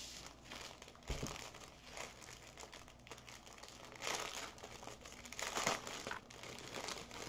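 Thin clear plastic crinkling and rustling in irregular bursts as small bags of diamond-painting drills and a plastic-sleeved canvas are handled.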